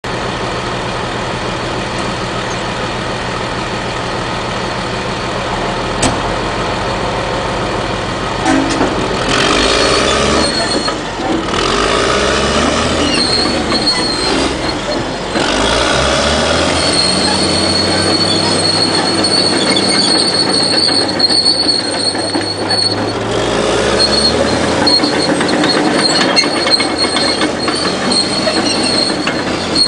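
Caterpillar D6R crawler dozer running: its diesel engine with the rattle of the steel tracks and a high squeal from the undercarriage coming in partway through. The engine note changes about a third of the way in, as the machine works.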